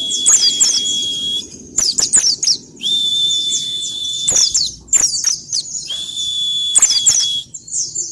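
Pleci (white-eye) singing fast, high twittering phrases of chirps. Three times it holds a long, steady high whistle for about a second and a half.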